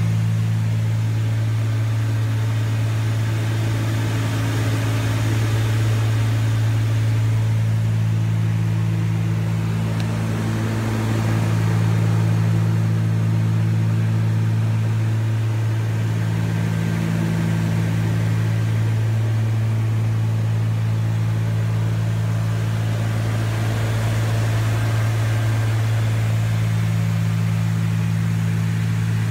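Cessna 310's twin piston engines and propellers droning steadily in cruise, heard inside the cabin. A low hum holds constant while a slightly higher tone swells and fades every few seconds.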